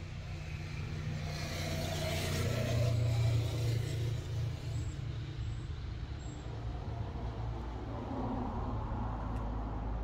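HAMM HW 90 road roller's diesel engine running steadily at idle, swelling louder for a second or so about two seconds in.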